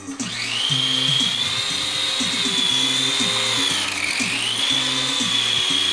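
Small electric motor of a toy RC aircraft spinning up to a high whine just after the start, holding steady, then dipping in pitch about four seconds in and recovering. Background music with a steady beat plays underneath.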